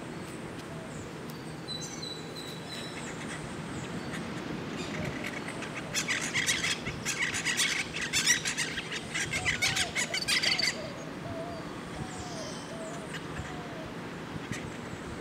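Wild parrots screeching: a loud run of harsh, rapid squawks lasting about five seconds in the middle, then stopping abruptly.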